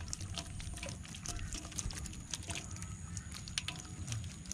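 Faint water splashes and drips with scattered small clicks and ticks, from wading and handling bamboo fish traps in shallow water, over a steady low rumble.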